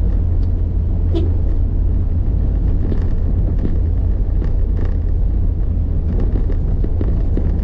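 Steady low rumble of a vehicle on the move, with a few faint short ticks.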